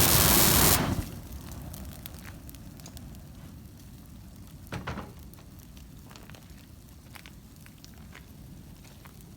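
Burning trash pile crackling and popping, with scattered sharp snaps and a louder crack about five seconds in. It opens with a loud rushing blast that cuts off about a second in.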